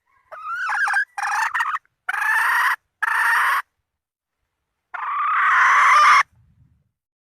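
Red junglefowl hen calling to a rooster: a run of four short, harsh calls followed by one longer call. It is a hen's call used as a lure for wild junglefowl roosters.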